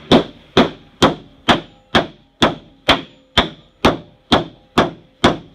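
Steady, evenly paced hammer blows, about two a second, each a sharp strike with a short ringing tail.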